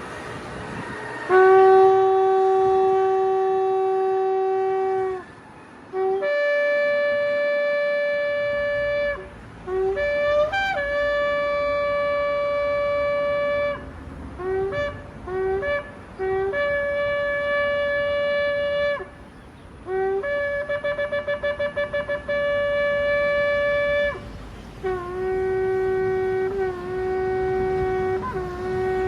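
Shofar blown in a series of calls: long held blasts, groups of short separated notes, and a quick fluttering run of notes a little past the middle, switching between a low note and a higher one. The last blast, on the low note, wavers slightly in pitch.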